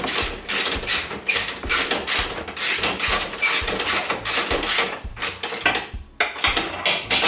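Hand ratchet wrench being worked back and forth on a bolt, a rapid ratcheting buzz about two to three strokes a second, with a short pause about six seconds in. Background music with a beat plays underneath.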